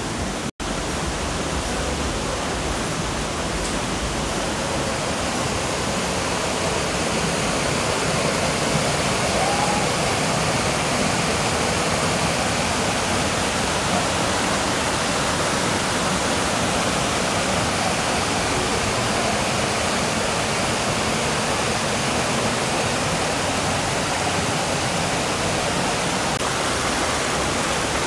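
Water falling down natural freshwater cascades: a steady rush that breaks off for an instant about half a second in.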